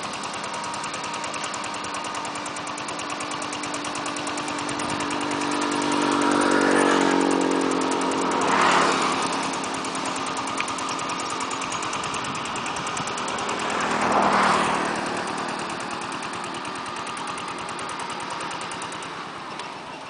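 Landmaster two-wheel walking tractor's single-cylinder diesel engine running under load as it pulls a plough through the soil, with a steady fast chugging that swells louder a few times in the middle.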